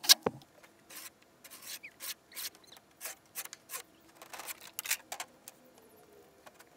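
Carbide-tipped scoring knife drawn along a straightedge across Hardie backer cement board, a run of short, irregular scratchy strokes as the line is scored for snapping. A sharp click right at the start is louder than the rest.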